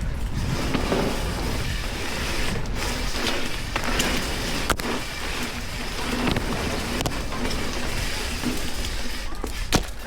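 Wind rushing over the microphone and knobbly tyres rolling on a dirt trail as a Giant Anthem Advanced SL cross-country mountain bike is ridden at speed, with a few sharp clicks and clatters from the bike over bumps, the loudest near the end.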